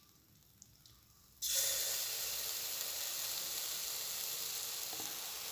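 Cake batter sizzling in hot oil in a kadai. The sizzle starts suddenly about a second and a half in and then holds steady.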